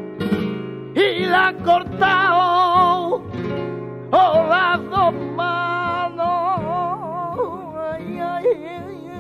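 Background music: a flamenco-style Spanish song, a singer holding long notes with heavy vibrato over strummed acoustic guitar.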